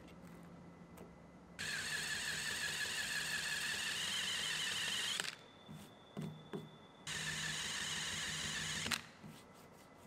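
A small electric power tool runs twice, about four seconds and then about two seconds, with a steady whine that rises slightly in pitch near the end of the first run. Between the runs there are a few soft knocks. The tool is being used to take a dealer badge off a pickup's tailgate.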